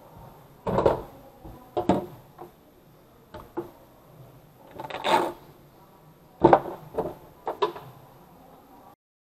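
A few irregular knocks and bumps and one longer scrape, from a hand-sized RC airboat's plastic hull and wire prop cage being picked up and shifted about on a tabletop.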